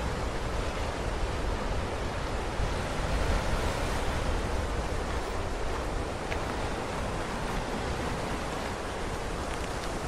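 Ocean surf washing in over and around coastal rocks: a steady rush of breaking water that swells a little about three seconds in.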